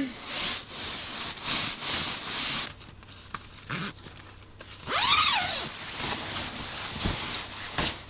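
Cloth rustling and rubbing as a handmade sewn fabric item is handled, in several short spells, with a few light knocks. A brief rising-then-falling pitched sound comes about five seconds in.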